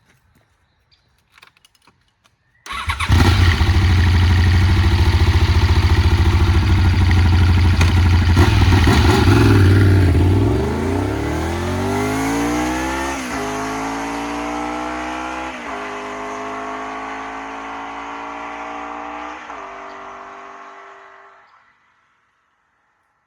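Honda VFR750F's 750 cc V4 on its stock exhaust. It comes in suddenly and runs loud and steady for several seconds, then the motorcycle accelerates away. It changes up three times, the pitch climbing and dropping back at each shift, and it fades into the distance.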